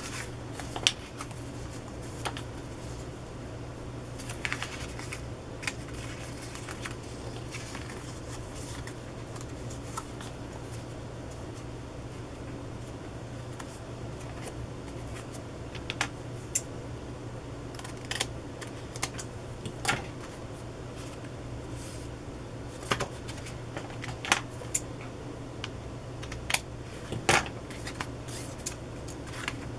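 Paper rustling and handling, with scattered light clicks and taps as a paper strip and a card tag are moved and pressed together, over a steady low hum.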